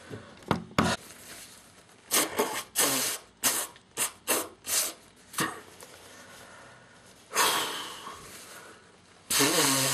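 A person blowing their nose: a quick run of about nine short, sharp blows, then a longer blow, and near the end a long, loud blow with a buzzing tone in it. Two sharp clicks come just before the blowing.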